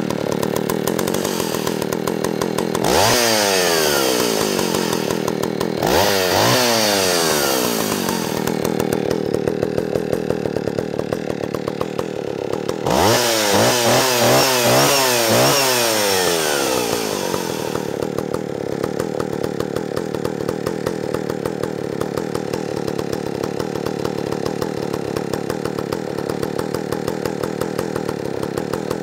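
John Deere 80EV chainsaw (an Echo-built 750EVL) two-stroke engine idling low with a popping beat. It is revved up three times: briefly about three and six seconds in, then held for a few seconds about thirteen seconds in. Each time it drops back to idle.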